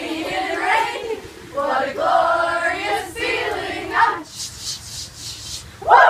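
A group of young voices singing a camp song together in unison, breaking off about four seconds in. A quick rhythmic run of short, sharp, hissy sounds follows at about three a second, and a short rising shout comes at the very end.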